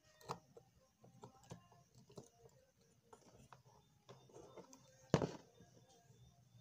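Faint small clicks and taps from handling wires and a soldering iron on a TV tuner module, over a faint low hum. One louder knock comes about five seconds in.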